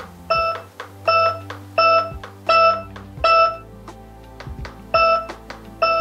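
Retekess TH107 nurse-call receiver beeping from its speaker as its volume buttons are pressed: five short beeps of one pitch at an even pace, a pause, then two more near the end. Background music runs underneath.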